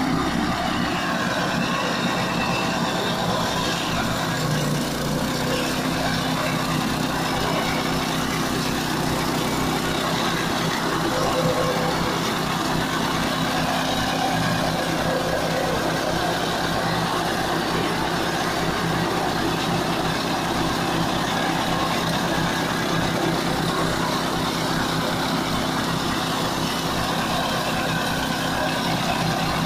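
8 HP gasoline engine of a walk-behind flail mower running steadily as the mower cuts through tall grass.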